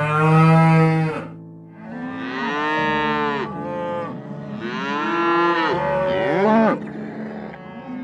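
Cows mooing: three long moos one after another.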